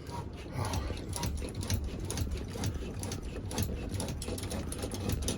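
Steady mechanical rattling with many irregular clicks and knocks.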